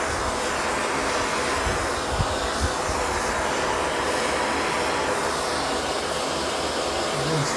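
Handheld gas torch flame burning with a steady, even rushing hiss as it heats bare steel body panel for lead work.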